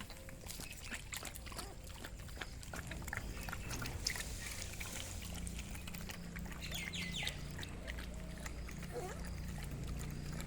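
Puppies feeding, with scattered wet lapping clicks and a few brief high squeaks about seven seconds in.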